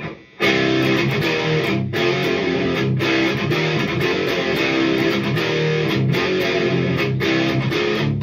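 High-gain distorted electric guitar riff in drop C, played on an ESP LTD with a Seymour Duncan JB pickup through the overdrive channel of a Hiwatt Hi-5 5-watt all-tube head (one EL84) into Celestion Vintage 30 1x12 cabinets. The riff starts about half a second in, with brief stops between phrases, and the volume has just been turned up a little more.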